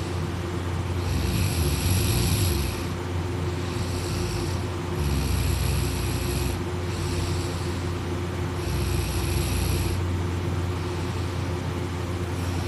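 A sleeping person snoring: three louder snores about every three and a half to four seconds, with softer breaths between, over a steady low hum.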